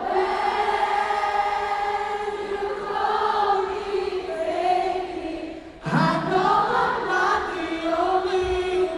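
Many voices singing long held notes together, choir-like, through an arena sound system, with a short break a little before two-thirds of the way through. A single low thump comes near the end.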